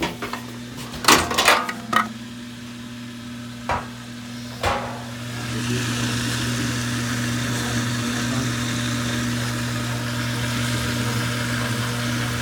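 A few sharp clicks and knocks, then the GE front-load washer's drain pump running in its diagnostic test with a steady motor hum. The hum gets louder with a rushing noise about five seconds in.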